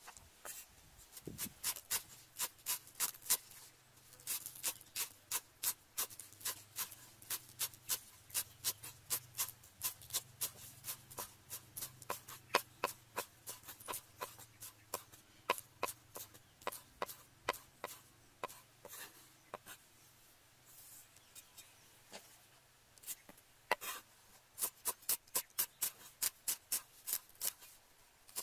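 Cleaver chopping green onions, then coriander, on a thick round wooden chopping block. Quick, even strikes, about four a second, with a few seconds' pause past the middle.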